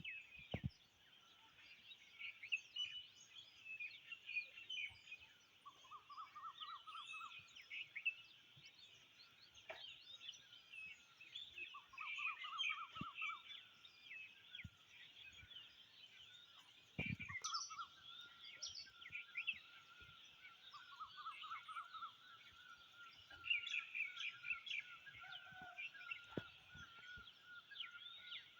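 Many small birds chirping and singing together in a dense chorus of short, overlapping calls. A fast trill comes back several times. A low thump sounds a little past the middle.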